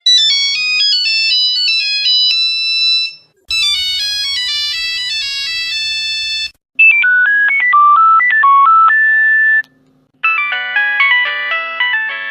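Nokia mobile phone ringtones played one after another: four short melodies of a few seconds each, with brief gaps between them. The first and third are single lines of beeping notes, and the second and fourth are fuller, with several notes sounding together.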